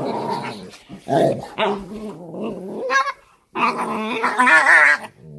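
Two Cane Corso dogs, a mother and her puppy, growling during a rough wrestling match, with a longer wavering vocal sound about four seconds in: the mother dog correcting the puppy.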